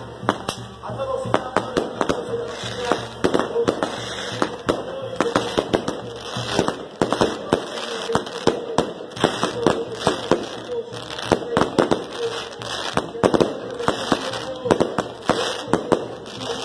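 Fireworks from a burning castillo tower and aerial shells going off in rapid, irregular bangs and crackles, one close on another.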